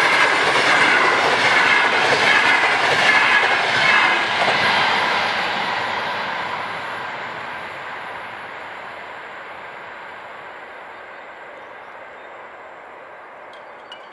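Finnish VR Intercity passenger carriages passing close by at speed, the wheels clattering on the rails. The rushing sound cuts down after about four to five seconds as the last car goes by, then fades steadily as the train recedes.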